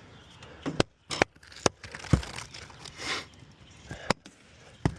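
Several sharp, irregular knocks and crackling scrapes as the cut-out piece of asphalt shingles and roof decking is worked loose and pulled out of the inspection hole.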